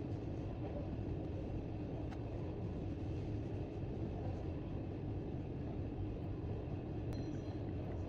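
Steady low background rumble of room noise, with no distinct sound events apart from a faint tick about two seconds in.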